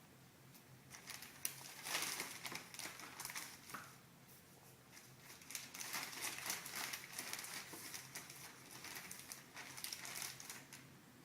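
Thin plastic poly bag crinkling and rustling in irregular bursts as it is handled.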